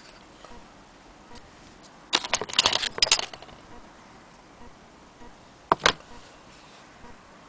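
Small metal parts of an antique Willcox & Gibbs sewing machine clicking and rattling as it is handled: a burst of rattling clicks about two seconds in, then two sharp clicks near the end.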